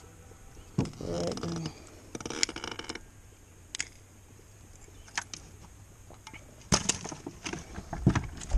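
Scattered clicks, knocks and rattles of fishing gear and pliers being handled while a small fish is unhooked, with a quick run of sharper clicks near the end.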